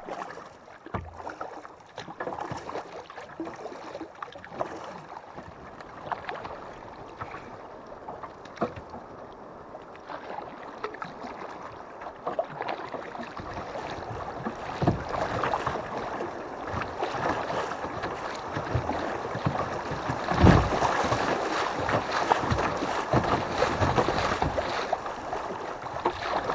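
Kayak paddle strokes splashing and silty river water washing against a plastic kayak's hull, growing louder in the second half as the kayak runs through choppy water.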